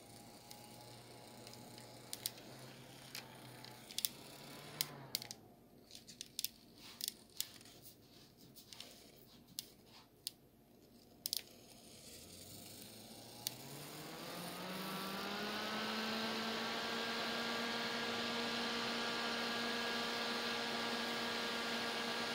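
Small handheld electric fan running with a low motor hum that slows and stops about five seconds in. A few light clicks follow. Then the fan spins up again with a rising whine from about twelve seconds in and settles into a steady hum over a rush of air.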